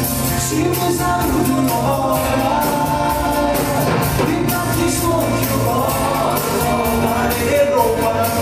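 A man singing a pop song into a microphone, amplified through a PA, over backing music with a steady beat; his voice comes in about half a second in.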